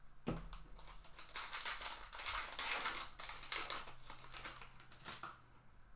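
A trading-card pack wrapper being torn open and crinkling, with a dense stretch of crackling about a second in, followed by a few scattered crackles and clicks as the wrapper and cards are handled.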